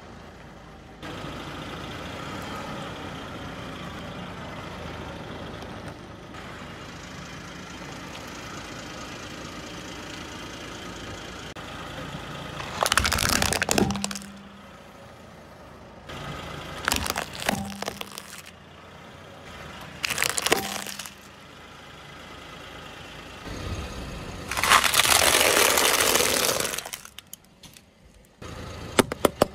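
A car tyre rolling over objects laid on paving stones and crushing them, over a steady engine-and-street hum: several short, loud cracking crunches, then a longer crackling crunch lasting a couple of seconds.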